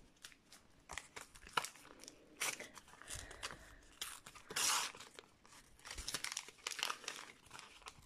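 Panini sticker packet's wrapper crinkled and torn open by hand: a run of small crackles with one brief louder rip a little after the middle.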